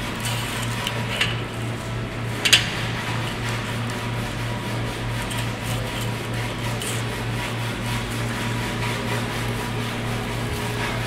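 A steady, low mechanical hum that pulses evenly, with a few short sharp taps; the loudest tap comes about two and a half seconds in.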